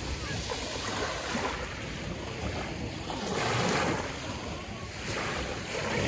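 Sea waves washing in, with wind buffeting the microphone; one wave surges loudest about three and a half seconds in.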